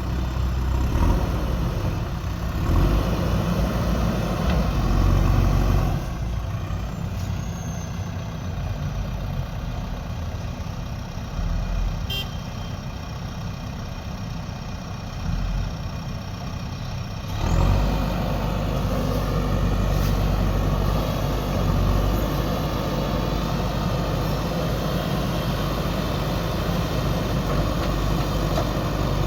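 JCB 3DX backhoe loader's diesel engine running under load as it digs and loads soil. Its sound drops back about six seconds in and comes up again sharply about seventeen seconds in.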